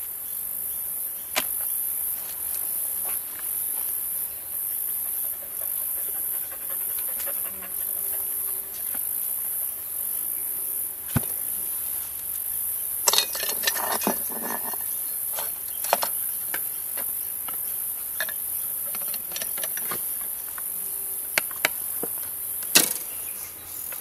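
High-pitched insect chorus, pulsing evenly a little faster than once a second. Over it come a few knocks and scrapes as the wooden hive boxes are handled, with a short cluster just past the middle and the sharpest knock near the end.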